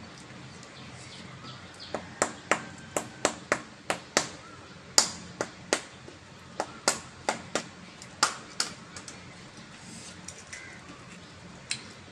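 Hollow fried puri (fuchka) shells crunching and cracking: a run of sharp, crisp cracks, roughly two or three a second, for about six seconds starting two seconds in, with one more crack near the end.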